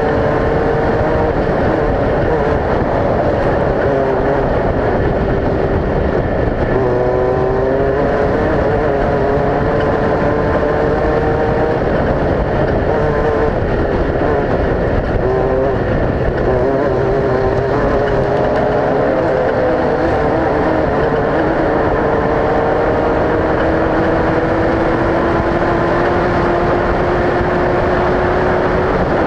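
Off-road race vehicle engine running hard under a constant loud rush of noise. Its pitch climbs slowly and drops back several times, near 7, 16 and 22 seconds in.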